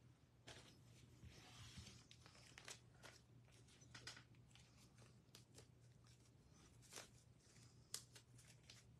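Faint crinkling and rustling of packaging being handled, with scattered light clicks and taps, over a faint steady low hum.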